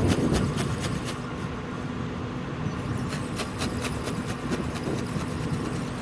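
Wind buffeting the microphone, a rumbling noise that eases off about a second in, with a faint steady hum underneath and runs of quick ticks, several a second.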